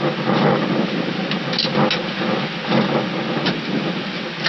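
Airbus A319 cockpit noise during the landing rollout: a steady rumbling hiss of engines, airflow and tyres on the runway, with a few short knocks.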